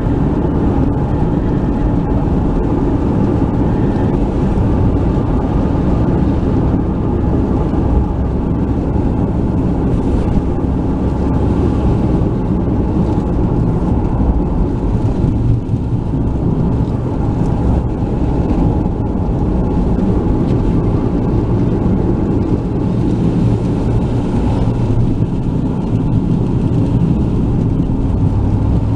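Steady road noise heard from inside a moving car: engine hum and tyre rumble on wet asphalt.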